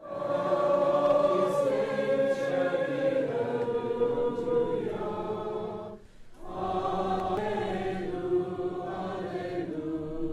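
A choir singing slow, long-held chords in two phrases, with a short break about six seconds in.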